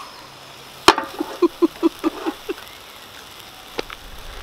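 A sharp metal clack as a frying pan is set down on an electric hot plate, followed by a quick run of about eight short bursts of laughter. A fainter click comes near the end.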